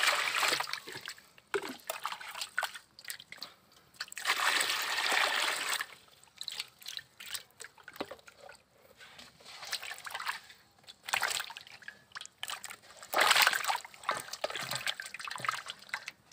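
Water pouring into a metal basin of live climbing perch in a few spells of steady rushing, one at the start and two more later on. In between, the fish splash and slosh in the water.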